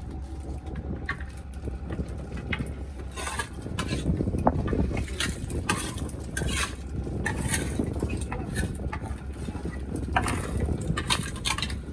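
A fishing boat's engine runs with a steady low hum under irregular knocks and slaps as fish are picked off the wet deck by hand and tossed into plastic baskets.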